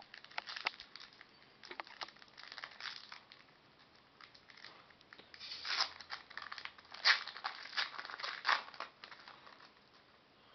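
Foil wrapper of a baseball card pack crinkling and tearing as it is opened and handled, in irregular runs of crackles that are loudest past the middle.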